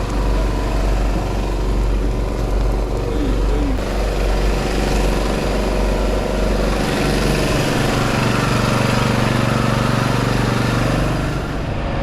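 An engine running steadily amid busy street noise, getting louder for a few seconds from about seven seconds in.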